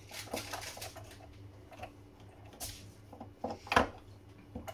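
Screwdriver working the screws that hold the radar antenna scanner onto its drive gear, with scattered small clicks and scrapes of parts being handled. A sharper knock comes about three quarters of the way through.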